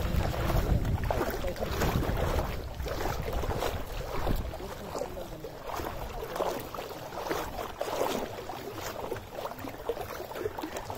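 Shallow sea water lapping and splashing close by. Wind rumbles on the microphone and eases after about a second.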